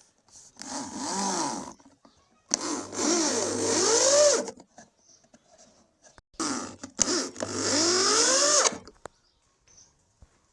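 Handheld power tool working wood in three bursts, the longer two about two seconds each. Its whine dips and rises in pitch within each burst over a high hiss.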